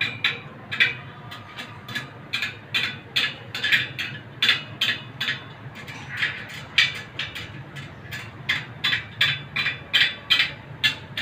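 A run of sharp metallic clicks, about two or three a second and slightly uneven, from a spoked motorcycle wheel being trued as its spokes are adjusted.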